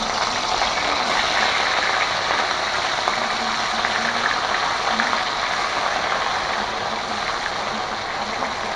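Mrigal carp steaks sizzling in hot oil in a metal karahi, a steady loud hiss with fine crackling, as more pieces are laid in the oil one after another.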